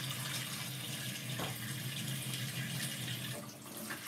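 Water running steadily, with a low steady hum underneath that drops out about three and a half seconds in.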